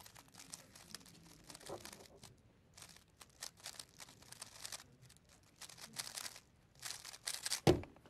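A 3x3 speedcube being turned fast by hand in a timed solve: quick, uneven runs of light plastic clicking and clacking. Near the end comes a louder single thump as the solve finishes and the cube is put down on the timer mat.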